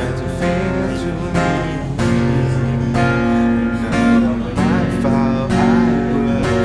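Acoustic guitar strummed steadily, playing the accompaniment of a song between sung lines.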